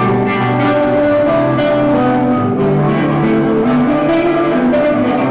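Instrumental music with guitar, a slow melody of held notes moving over a sustained low line.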